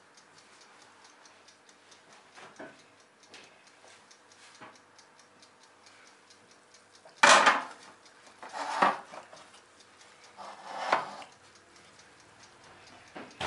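Heavy enamelled cast-iron pot clanking as it is handled and set down on a metal baking tray: one loud sharp knock about seven seconds in, then two more knocks over the next few seconds. A faint, regular ticking runs underneath.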